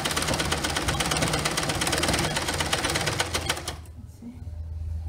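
Liberty domestic sewing machine stitching a straight topstitch through two layers of curtain fabric, its needle clattering in a fast, even rhythm until it stops abruptly about four seconds in.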